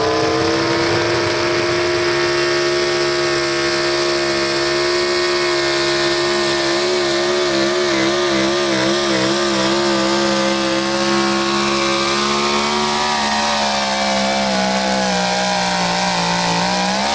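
Pro stock 4x4 pulling truck's engine held at high revs at full throttle during a pull. Its pitch wavers about halfway through, sags slowly over the last few seconds, then falls away right at the end.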